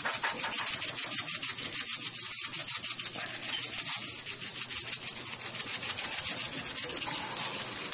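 A seasoning bottle shaken rapidly over raw steaks, the dry seasoning rattling inside it in a quick, steady rhythm.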